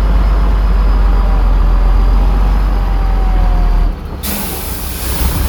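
A heavy truck's diesel engine running with a deep low rumble, which drops away about four seconds in; a loud air-brake hiss follows and lasts about a second.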